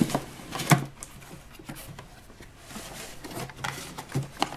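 Cardboard toy box being opened by hand: a sharp knock less than a second in, then light scraping, rubbing and a few small taps as the flaps are pulled open.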